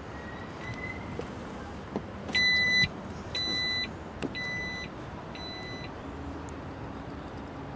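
Jeep Grand Cherokee power liftgate warning chime beeping four times, about once a second, the first the loudest, as the gate begins to close. It is followed by the faint steady hum of the liftgate motor lowering the gate.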